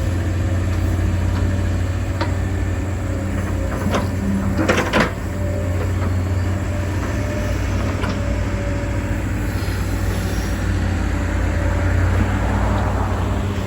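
Excavator diesel engine running steadily under a working load, with a few sharp knocks and clanks, the loudest cluster about five seconds in.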